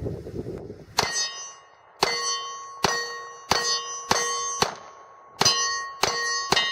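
A 10 mm Glock pistol fired rapidly at steel targets: about nine shots in quick succession, each answered by a hit on steel that clangs and rings with a bell-like tone.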